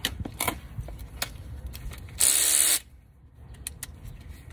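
A few light metal clicks of tools on a brake caliper, then a loud burst of about half a second from a power ratchet spinning a caliper bolt, starting and stopping abruptly.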